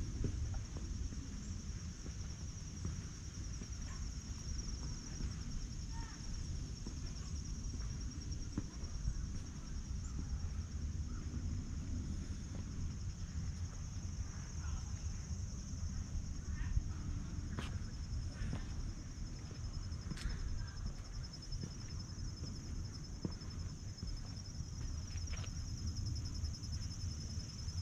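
Steady chorus of insects, a high shrill pulsing drone that does not let up, over a low rumble, with a few short faint chirps now and then.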